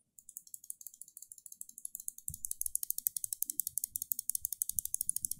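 The Razer Viper V2 Pro's new optical-mechanical mouse switch, held loose and clicked rapidly by hand, about ten crisp clicks a second. The clicks start faint and grow louder about two seconds in.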